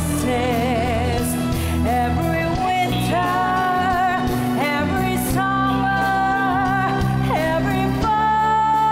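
A woman singing a song over instrumental backing, her held notes wavering with vibrato, ending on one long held note about eight seconds in.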